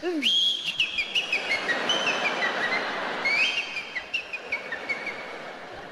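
A man whistling a high tune in two falling phrases, over audience noise.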